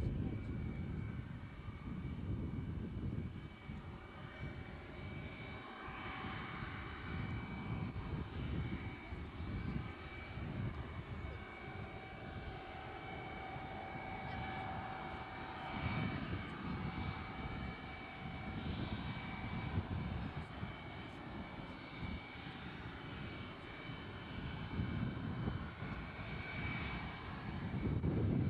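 Lockheed U-2's single turbofan jet engine running at low taxi power: a steady high whine over an uneven low rumble.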